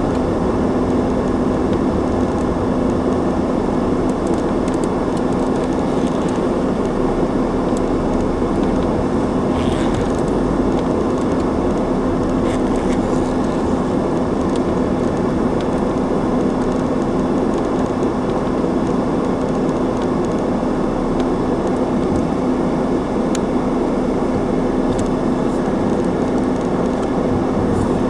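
Car driving at a steady pace: a constant engine and tyre noise with a steady low hum, unchanging in level throughout.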